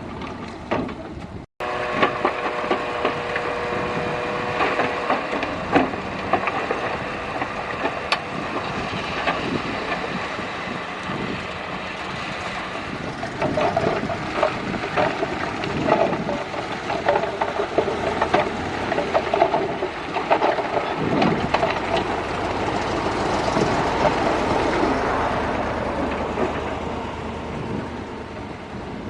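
Heavy earthmoving machinery at work: a diesel engine running steadily under frequent metallic clanks and knocks. The sound cuts out for an instant about a second and a half in.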